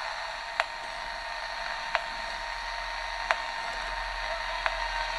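Radio static hiss from a Kosmos X2000 kit reflex receiver fed by a homemade shortwave converter, with four sharp ticks evenly spaced about one and a half seconds apart. The ticks are interference from a nearby electric fence's pulses picked up by the receiver.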